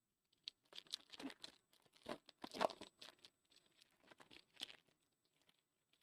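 A foil trading-card pack wrapper being torn open and crinkled by hand, in a series of irregular rustling tears for about four seconds.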